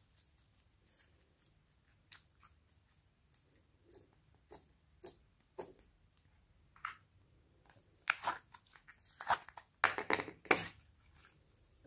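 Glossy slime being stretched and pressed by hand, making scattered small wet clicks and pops. About eight seconds in, a denser, louder run of clicks and crackle lasting some three seconds as a hand squeezes a soft lump of clay slime.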